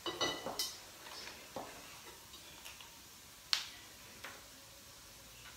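Kitchen utensils clinking against a bowl while food is mixed by hand: a quick cluster of clicks at the start, then single clinks, the sharpest about three and a half seconds in.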